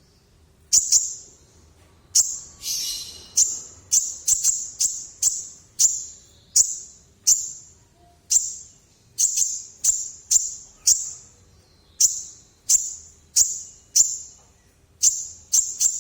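Kolibri ninja sunbird calling hard: a rapid series of sharp, high, sudden-starting chip notes, roughly one or two a second. About two and a half seconds in there is a brief buzzy rattle.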